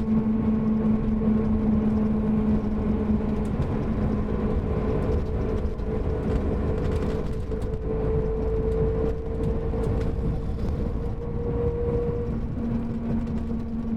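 Mercedes-Benz OM-457LA inline-six turbodiesel of a Marcopolo Paradiso G7 double-decker coach running: a steady low rumble with a hum over it, the deeper part of the hum fading a couple of seconds in and coming back near the end.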